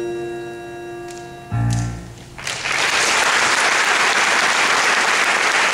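Pit orchestra ends the number: a held chord fades, then a short, loud closing chord with a heavy low end sounds about a second and a half in. From about two and a half seconds in, the audience breaks into steady applause.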